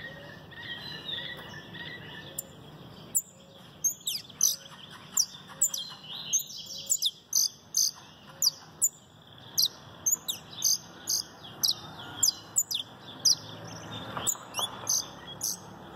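Canary singing: a long run of short, sharp, high notes that drop quickly in pitch, repeated in fast strings with brief gaps, starting a couple of seconds in.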